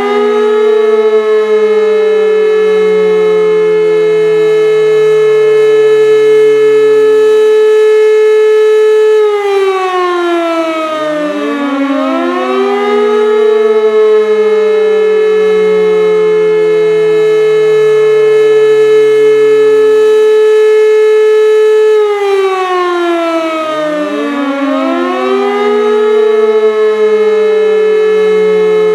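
World War II-style air raid siren wailing loudly. It rises to a long held tone, then falls away while the next rise begins, about every 13 seconds, so the pitch falls and climbs again twice.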